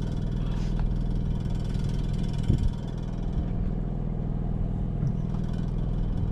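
A small engine aboard the boat running steadily, a low even hum. A short thump about two and a half seconds in.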